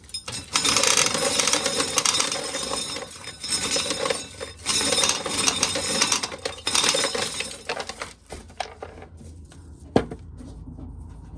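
Corn sheller stripping kernels off an ear of corn, with the kernels rattling and clattering out in several long runs and short breaks, then quieter with a single sharp knock near the end.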